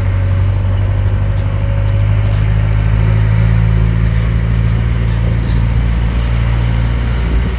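Tourist road train's engine running steadily with a low, even drone.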